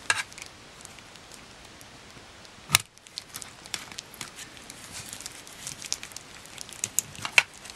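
Small scattered clicks and taps of gloved fingers and a metal heart-shaped cutter working a metal tin of set gelatin. One sharper click comes nearly three seconds in, and the ticks grow more frequent toward the end.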